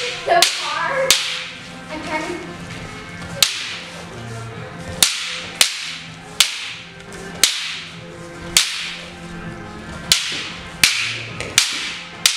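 Wooden staffs clacking against each other in a two-person staff drill. There are about fifteen sharp wooden cracks at uneven intervals, often one or two a second, each ringing briefly.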